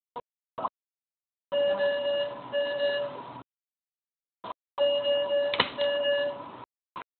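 Electronic alarm on medical equipment beeping: two steady beeps, a pause of about a second and a half, then two more, with a few short blips between.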